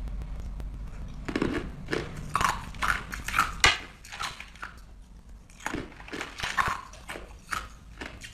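Close-up crunching and chewing of hard frozen coloured ice pieces, a quick irregular run of sharp crunches starting about a second and a half in.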